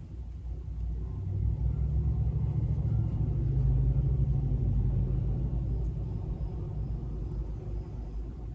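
A low rumble that swells about a second and a half in and slowly fades away toward the end.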